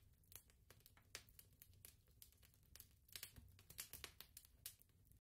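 Near silence, with faint scattered crackles and clicks.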